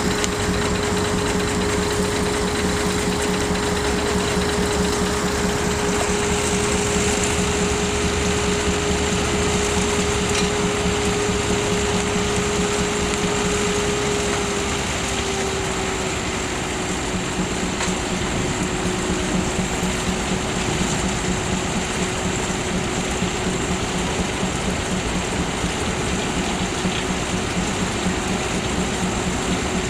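Sawmill driven by an Advance Rumley steam traction engine, running steadily. It makes a sustained whining tone that drops slightly in pitch about halfway through, over a fast, even pulsing.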